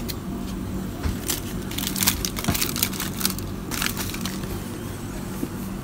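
Crunching and crinkling from the foil-wrapped salt crust on a roasted pork belly being handled, in several short bursts between about one and four seconds in, over a steady low hum.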